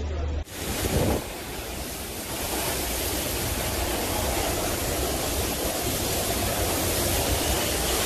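Severe storm: a steady, loud rush of strong wind and heavy precipitation beating down, with a swell about a second in. It follows a brief low hum that cuts off about half a second in.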